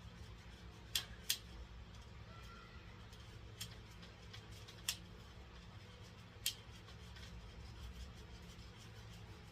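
Sharp clicks and snips of hand tools working on a sliding screen door frame: two close together about a second in, then three more spaced a second or more apart. A steady low hum runs underneath.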